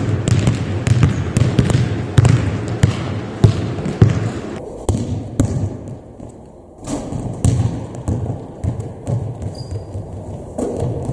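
Basketball dribbled hard on a sports hall floor, bouncing about twice a second with sharp thuds, pausing briefly about six seconds in before the bouncing resumes.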